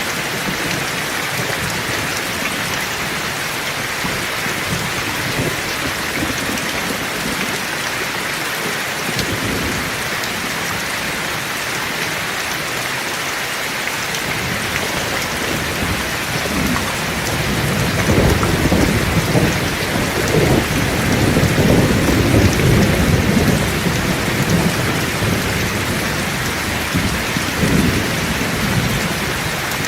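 Heavy rain falling steadily, with a long rolling rumble of thunder that builds about halfway through and fades near the end.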